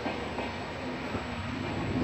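Double-deck regional passenger train moving along the track, a steady rumble of wheels on rails.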